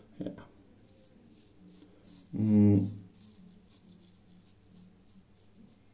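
A razor scraping through lathered stubble in short strokes, about two or three a second. A person makes one brief loud hum about two and a half seconds in.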